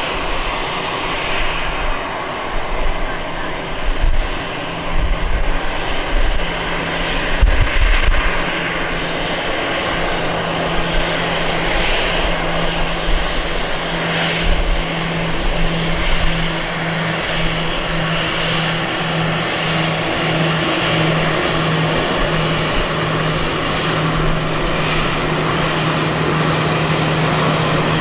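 Jet engines of an Airbus A321-211, CFM56 turbofans, running at low power as the airliner taxis slowly on the runway. The sound is a steady jet hiss with a low drone, and the drone grows steadier in the second half.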